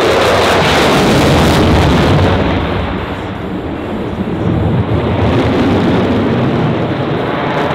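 F-35B Lightning II's Pratt & Whitney F135 jet engine in afterburner: loud, rumbling jet noise with crackling as the jet banks and climbs. The noise eases a little about three seconds in and builds again after about four and a half seconds.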